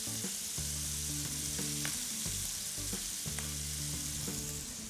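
Frying pan sizzling steadily as halved potatoes, diced pancetta and freshly sliced leeks fry in olive oil and rendered pancetta fat, with a few faint clicks.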